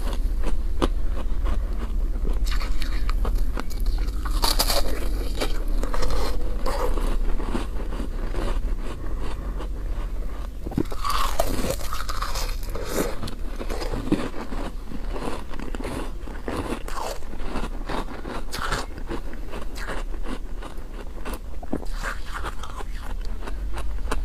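Close-miked biting and chewing of a soft chunk of freezer-frost ice: repeated crunches and crackles in the mouth, with a steady low hum underneath.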